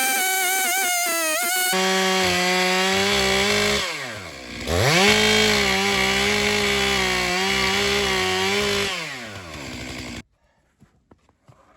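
Two-stroke Stihl MS 661 chainsaw running flat out at a steady high pitch. About four seconds in its speed drops and it revs straight back up. Near the end it winds down and the sound cuts off abruptly. It is preceded by a short wavering pitched sound.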